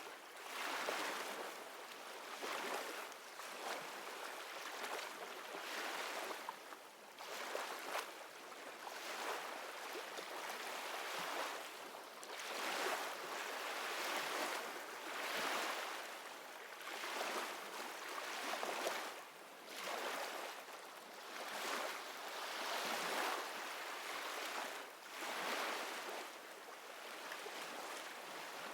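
Ocean surf as a relaxation backing track: a soft hiss of waves that swells and fades every couple of seconds.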